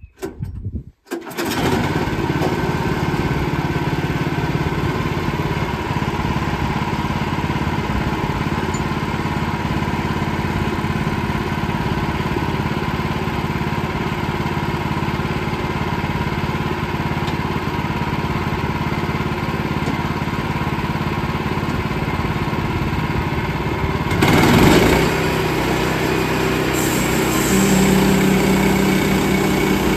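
A small portable sawmill's gasoline engine, about 10 horsepower, running steadily as the mill saws a poplar log. It starts after a brief gap at the beginning. About 24 seconds in it surges briefly, then settles into a slightly different steady note.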